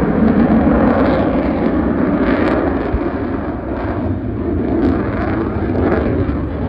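A large multi-engine airplane flying low overhead: loud, steady engine noise.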